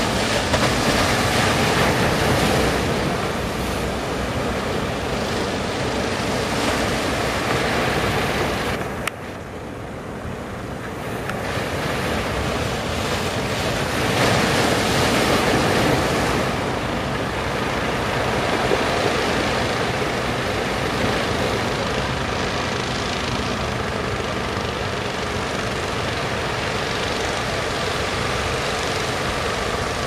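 Surf breaking and washing at a river mouth in heavy swell, with wind buffeting the microphone and the steady running of fishing-boat engines underneath. The sound drops off abruptly about nine seconds in and builds back up.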